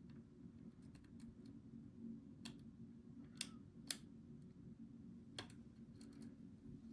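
Lock pick tapping and clicking on the pins inside an ASSA 700 high-security lock cylinder as it is picked: small sharp metallic clicks at irregular intervals, the loudest two close together about three and a half seconds in, over a steady low hum.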